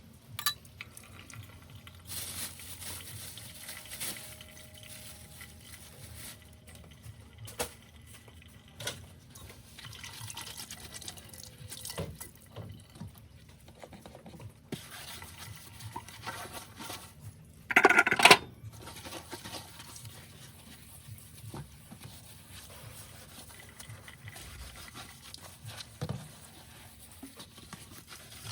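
Dishes washed by hand in a sink: water trickling and splashing, with scattered light clinks and knocks of plates. One much louder burst, lasting about half a second, comes about two-thirds of the way through.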